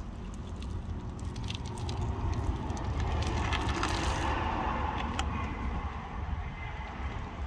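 Gloved hand digging into soft, sticky beeswax cappings in a plastic bucket and lifting a handful out, with scattered light clicks and crinkles over a steady low rumble. A rushing noise swells and fades about four seconds in.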